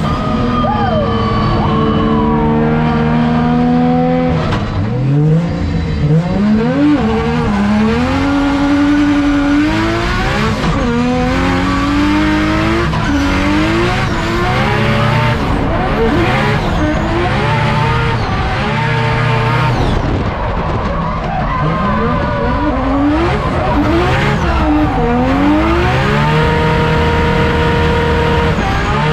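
Drift car engine revving hard, its pitch climbing and dropping again and again with gear changes and throttle, over tyres skidding and squealing through a drift run.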